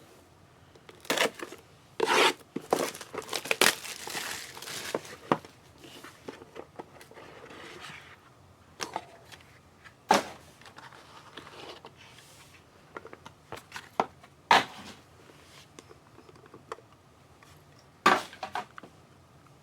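Packaging on a trading-card hobby box being torn and crinkled open. A burst of tearing and rustling comes in the first few seconds, then single sharp crinkles and handling noises follow a few seconds apart.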